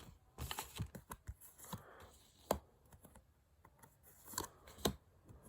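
Trading cards being flipped and shuffled through by hand: a run of faint, irregular clicks and card snaps, with a couple of sharper snaps about two and a half seconds in and near the end.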